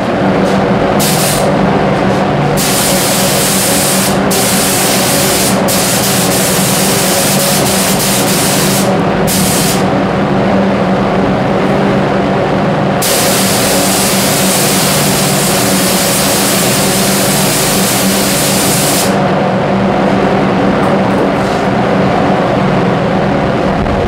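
Compressed-air gravity-feed spray gun hissing as it sprays wood-effect lacquer: several bursts in the first ten seconds, then one long burst from about 13 to 19 seconds in. Under it, the spray booth's extraction fan drones steadily throughout.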